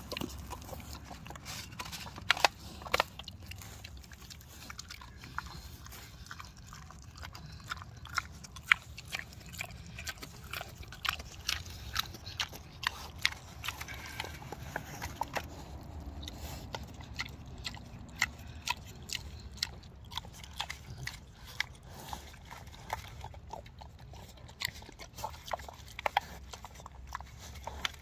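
Pot-bellied pig eating pumpkin pie from a metal plate: chewing, with many short, sharp clicks coming irregularly throughout.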